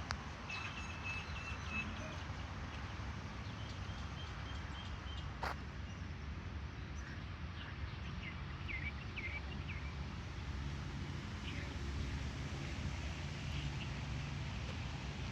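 Several birds chirping in short calls and quick trills of repeated notes over a steady low background rumble, with one sharp click about five seconds in.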